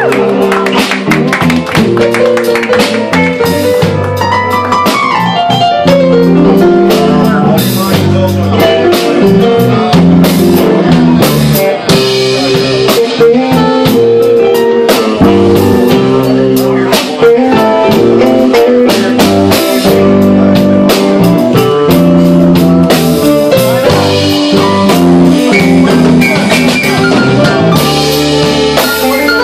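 Live blues band playing a slow blues, with electric guitar, bass, keyboard, saxophone and drums.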